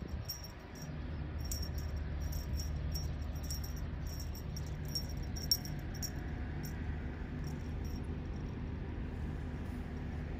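A steady low machine hum that sets in just under a second in, with irregular short high ticks over the first seven seconds or so.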